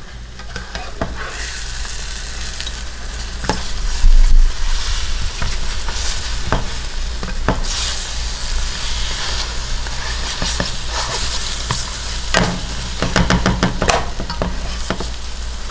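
Beaten eggs sizzling in a hot nonstick frying pan while a black slotted spatula folds and scrapes them, with scattered scrapes and clicks against the pan. There is a louder knock about four seconds in, and a busier run of scraping a little after twelve seconds.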